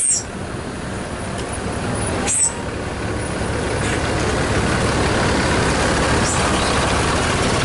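Tour bus's diesel engine running and growing louder as the bus approaches. Two short air-brake hisses cut through, one at the start and one about two and a half seconds in.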